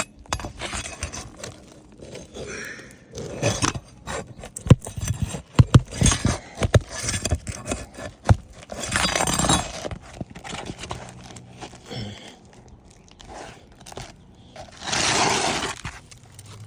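Metal hand tools knocking, clinking and scraping against asphalt roof shingles while old nails are worked out: a run of sharp taps and knocks from about four to eight seconds in, and two longer scraping passes, one about nine seconds in and one near the end.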